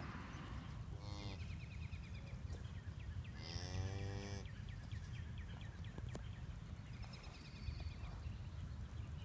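Cattle calling twice: a short call about a second in, then a longer, bending call about three and a half seconds in, from the Dexter cow or her newborn calf.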